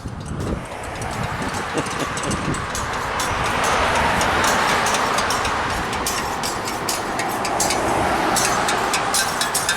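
Steady rushing vehicle noise that builds over the first few seconds and then holds, with a few clicks near the end.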